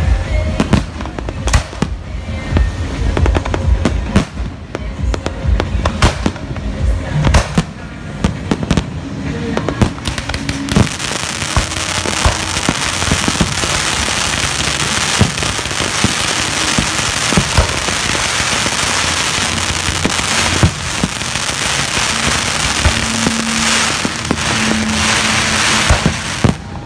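Fireworks: a rapid series of sharp bangs from bursting aerial shells, then about ten seconds in a ground fountain starts spraying with a steady, loud hiss while more shells keep banging over it.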